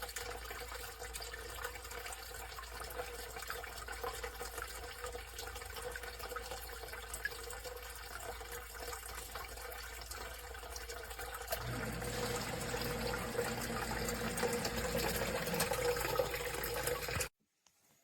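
Wayne CDU790 1/3 HP submersible sump pump running in its pit, with a steady rush of moving water. A low steady hum joins about twelve seconds in, and the sound cuts off abruptly near the end.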